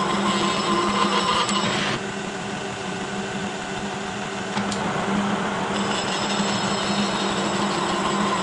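Kearney & Trecker horizontal milling machine running, its side-milling cutter cutting a spline slot in a Delrin shaft. The cutting noise drops away about two seconds in and comes back a little before six seconds, with a sharp click just before it returns.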